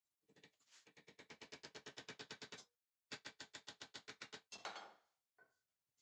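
Rapid, even clicking from a hand tool working the bolt in a steel blank held in a bench vise, about ten clicks a second. It comes in two runs with a short break and ends in a brief scrape.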